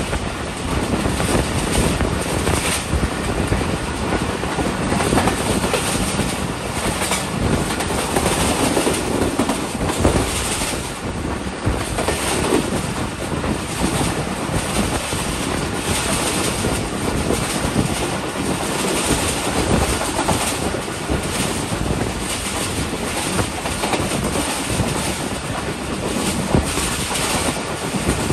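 Shalimar Express passenger train running at speed: a steady rumble of wheels on the rails, with repeated clicks as the wheels pass over the track.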